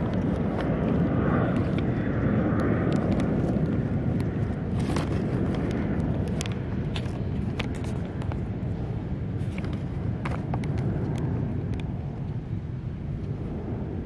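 Steady low outdoor rumble that slowly fades, with scattered light clicks and knocks close to the microphone.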